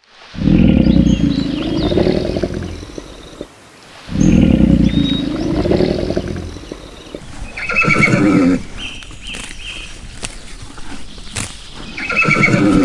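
Calls of a large farm animal: two long, low calls of about three seconds each, then shorter, higher-pitched calls about eight seconds in and again near the end.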